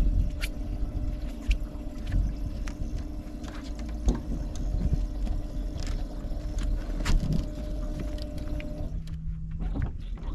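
Bow-mounted electric trolling motor humming steadily on a bass boat, dropping to a lower hum near the end, with scattered knocks and clicks of people moving on the deck and a low rumble underneath.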